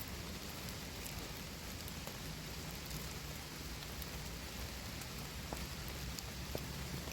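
Steady rain falling, with scattered sharp ticks of single drops striking.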